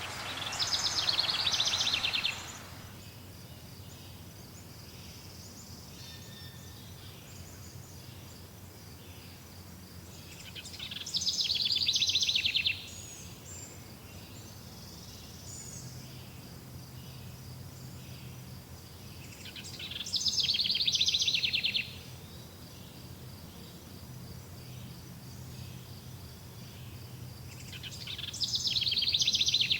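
A songbird singing the same rapid trilled song four times, roughly every nine seconds. Each song lasts about two and a half seconds, grows louder and stops abruptly. Between songs a faint, steady, high-pitched pulsing buzz continues.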